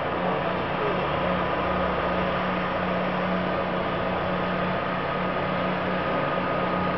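Seismic vibrator (vibroseis) truck running steadily: an even mechanical hum with a constant higher whine over a hiss, holding the same pitch throughout.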